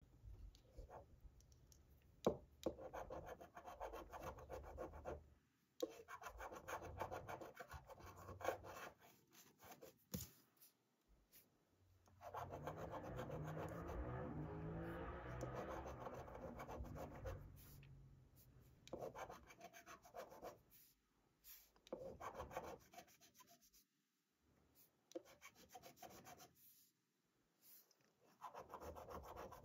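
A copper coin scraping the scratch-off coating of a paper lottery ticket: bursts of rapid scratching with short pauses between them, and a couple of sharp taps.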